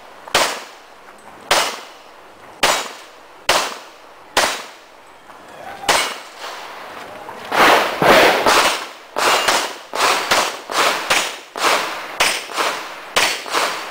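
Handgun shots in a practical shooting stage, each with a short echo. For the first six seconds the shots come singly, about a second apart. From about seven and a half seconds in they come in quicker runs, two or three a second.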